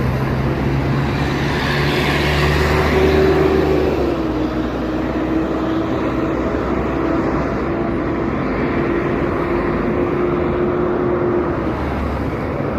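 Road traffic with a motor vehicle's engine running close by: a steady hum over road noise, its tone dipping slightly about four seconds in.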